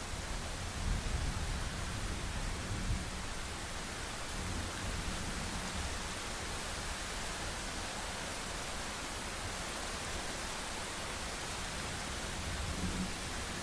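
Heavy rain falling in a steady hiss, with a low rumble of distant thunder in the first few seconds and again near the end.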